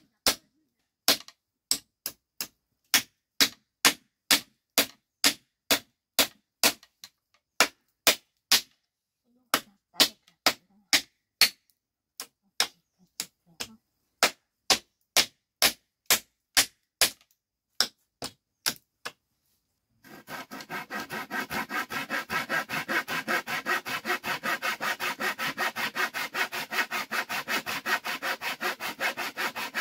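Claw hammer striking a wooden cupboard frame, sharp single blows about two a second with a few short pauses. About two-thirds of the way in, after a brief pause, a handsaw starts cutting a wooden board in quick, even strokes.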